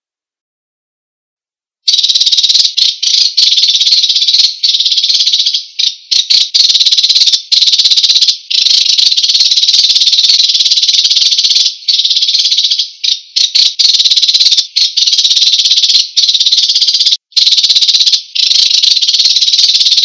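Sparrow song, a rapid, buzzy, high-pitched trilling that starts about two seconds in and runs almost without pause, broken only by short gaps.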